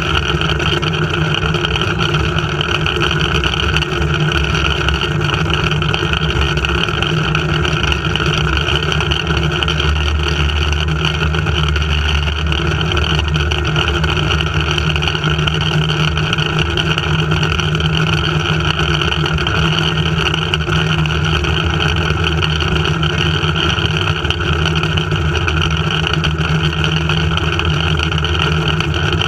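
Zipline trolley rolling down its steel cable at speed, a loud, steady hum and rumble of the pulley wheels mixed with wind rushing past the microphone.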